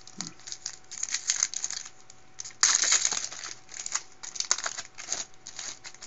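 Foil wrapper of a Bowman Platinum baseball card pack crinkling as it is opened and the cards are slid out: a run of irregular rustles, the loudest crinkle lasting about half a second some two and a half seconds in.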